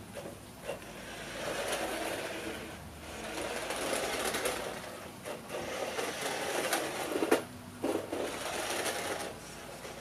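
Electric motor and gears of a classic remote control truck, running on a lithium-ion battery pack, whirring in about four bursts of a second or two as it drives over brick paving, with a sharp knock about seven seconds in.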